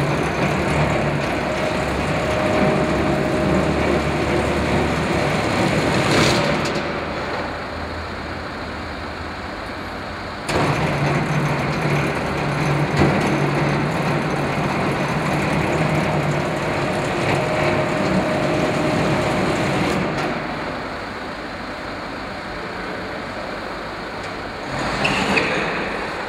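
Roller brake tester's motor-driven rollers running under the car's wheels for the rear brake test, stopping about six seconds in. They start again abruptly about four seconds later for the handbrake test and run for about ten seconds before stopping.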